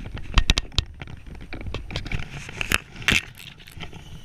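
Irregular rustling and sharp knocks of clothing and hands rubbing against a body-mounted action camera while a fly rod is held, over a low rumble. The loudest knocks come in a cluster about half a second in and once more about three seconds in.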